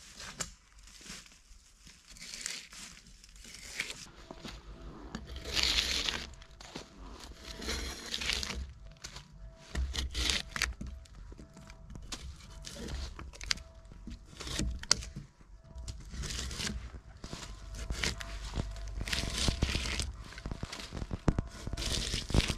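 Drawknife stripping bark from a felled log: repeated scraping strokes of steel on wood, with the bark tearing away, a stroke every second or so.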